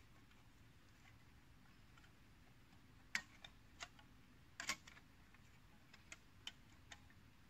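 A handful of sharp metal clicks and ticks as the sheet-metal panels of an Emberlit folding bush stove are handled and slotted together, starting about three seconds in, the loudest near the middle and fainter ones towards the end, over an otherwise quiet background.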